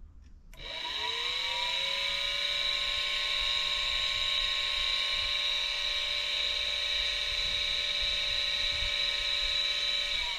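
The brushed electric motor of a NutriBullet 900 series blender, wired straight to a battery for a test. It spins up about half a second in with a rising whine, then runs with a steady high whine, and winds down at the end. It is running exactly as it is supposed to, a sign the motor is in working order.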